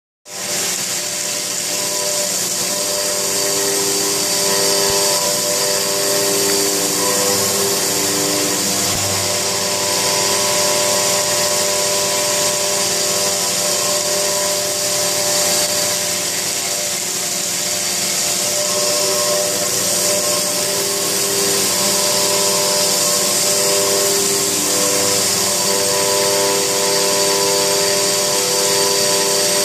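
A robot-held milling spindle cutting white stone under a water spray: a steady high hiss of cutting and spray over several steady whining tones that fade in and out as the tool moves across the stone.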